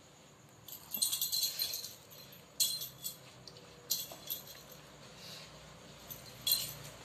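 Small bell on a cat's collar jingling as the cat moves, in four short bursts, the longest about a second in.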